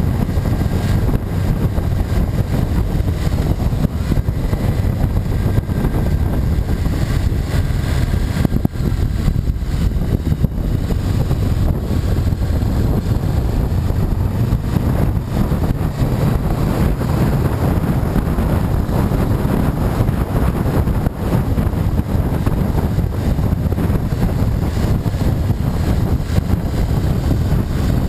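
Motorcycle riding at a steady cruise: the engine runs under a heavy, steady wind rumble on the bike-mounted microphone.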